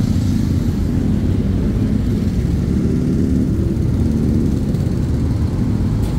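Motor scooter's small engine running steadily under loud, low wind rumble on the microphone while riding along in traffic.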